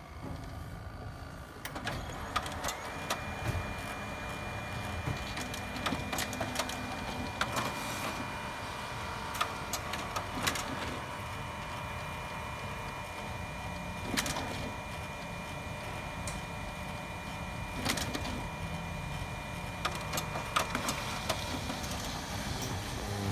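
HP Color LaserJet Pro MFP M177fw running a copy job: its motors start up about two seconds in and run with a steady whine, with scattered sharp clicks from the mechanism.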